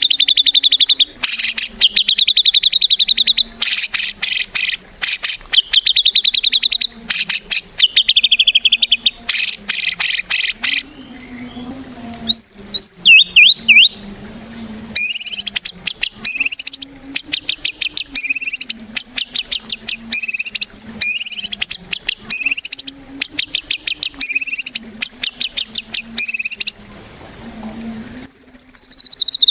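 White-rumped shama singing vigorously: fast runs of rapidly repeated high notes in phrases about a second long with short pauses between, and a few quick downward-sweeping whistles about halfway through.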